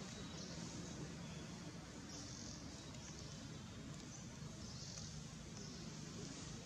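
Forest background with high, hissing insect calls coming in short pulses about every second, over a low steady rumble.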